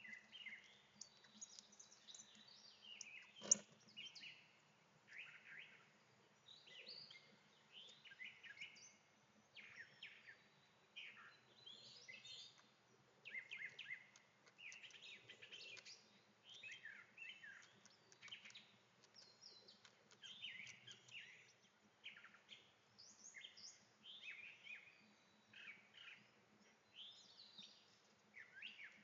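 Songbirds chirping and singing, a steady stream of short high calls and trills, with one sharp click about three and a half seconds in.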